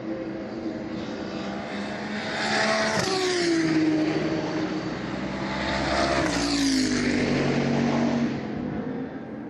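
Two GT3 race cars passing at speed, one about three seconds in and the next about six seconds in, each engine note falling in pitch as the car goes by.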